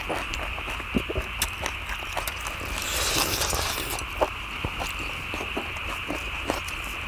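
People eating: scattered clicks of chopsticks against the cast-iron cauldron lid and chewing. A louder, noisier stretch comes about three seconds in, all over a steady high hiss.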